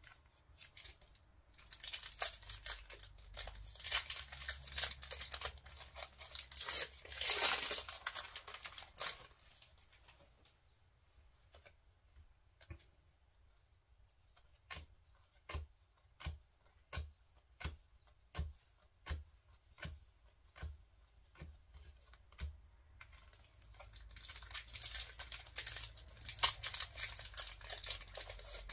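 Foil booster pack wrappers crinkling and being torn open, loudest about seven seconds in. Then a regular run of short, crisp taps, about one every 0.7 seconds, as trading cards are flipped through one at a time. More wrapper crinkling and tearing follows near the end.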